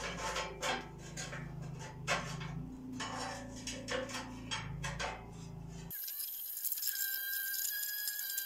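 Steel rods clicking and clinking against the sheet-metal body of a barbecue as they are handled and fitted, over a steady low hum. About six seconds in, this gives way abruptly to a steady hiss with a thin high tone.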